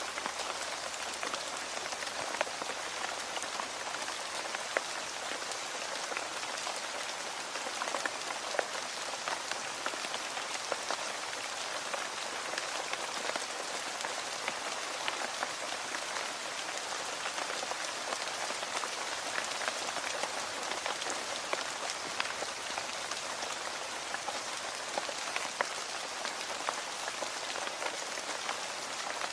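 Steady rain falling, a dense even hiss with many small scattered drop ticks.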